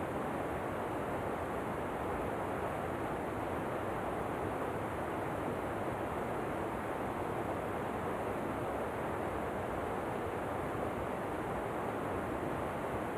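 Waterfall ambience: a steady, unbroken rush of falling water.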